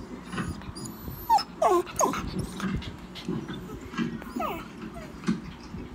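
Dog whining in short, falling whimpers: a quick cluster about a second in and another near four seconds in. The whining is the dog pestering its owner to go to bed.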